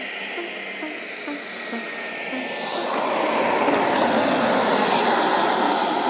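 Turbine engine of a model Freewing F-22 jet, a loud, even rushing jet noise that swells about halfway through as the model lands and rolls out on the ice.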